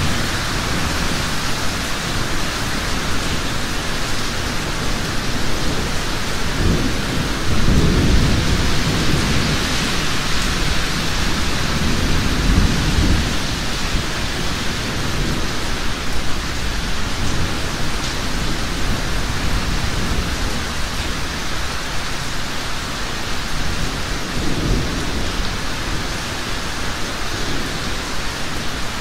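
Heavy rain falling steadily, a dense even hiss, with low rumbles of thunder that swell and fade three times: about a quarter of the way in, again a few seconds later, and near the end.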